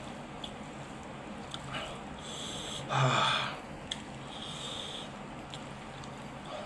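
A person overwhelmed by the heat of green bird's-eye chillies sniffs and hisses breath in and out, with one loud snort about three seconds in and small mouth clicks from chewing between.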